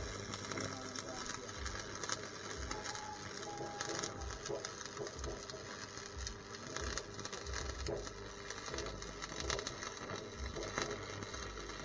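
Stick arc welding: a welding rod burning against a steel frame, making a continuous crackle with frequent sharp pops.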